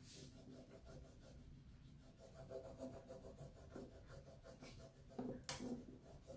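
Faint rubbing of fingertips over a rub-on décor transfer sheet, pressing it onto the bare wood side of a drawer.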